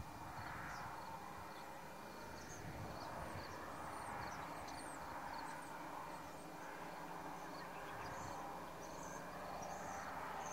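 Outdoor ambience: faint high chirps of small birds over a soft rushing noise that swells and fades every couple of seconds.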